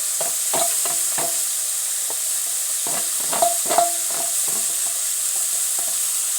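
Onions, peppers, courgettes and tomatoes sizzling in hot oil in a pan, with a utensil scraping and knocking against the pan over and over; two louder knocks come a little past the middle.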